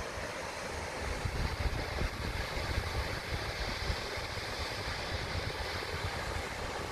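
Steady rush of a river running white through a rocky gorge, with a waterfall spilling into it, and wind buffeting the microphone in uneven low gusts.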